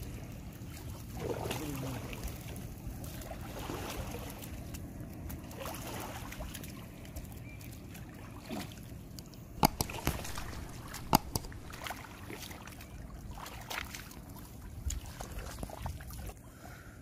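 A wet fishing net is shaken and picked over a bamboo basket, water trickling and splashing as small fish and shrimp drop in. Two sharp clicks stand out a little past the middle.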